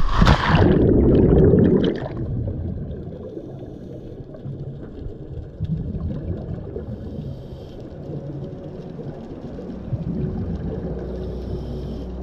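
A scuba diver's backward-roll entry into the sea: a loud splash and rush of water lasting about two seconds. Then comes a muffled underwater rumble with two surges of bubbling from exhaled regulator breaths.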